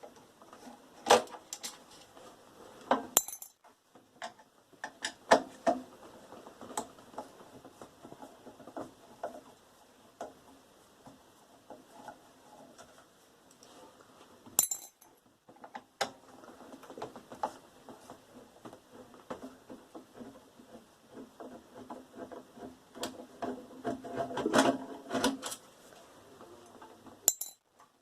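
Metal parts and tools of a microwave oven being handled as it is dismantled: irregular clinks, taps and knocks, a few of them sharp and loud, with a short busier stretch of rattling near the end.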